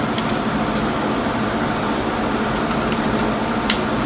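Steady hum and rush of ventilation fans, with a few faint clicks and one sharp, loud crack near the end.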